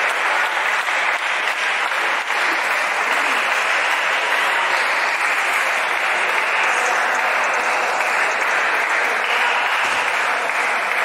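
Steady, dense applause-like din of a busy table tennis hall, with faint clicks running through it and no pauses.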